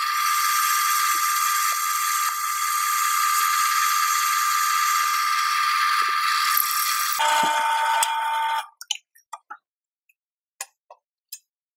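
Drill press driving a hole saw through a steel flat bar: a steady high-pitched cutting whine with a metallic hiss. About seven seconds in the pitch drops and the sound turns rougher, then it stops a second or so later, followed by a few light clicks.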